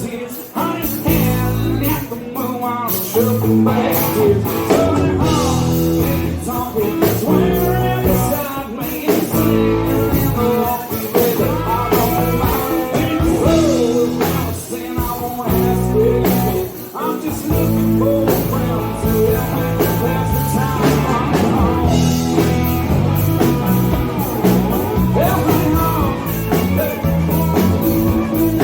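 Live rock-and-roll song played loud and steady, with guitar and a singing voice.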